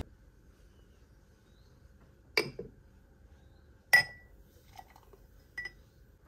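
A few light clinks of hard objects, spread out, the loudest about four seconds in with a brief ring.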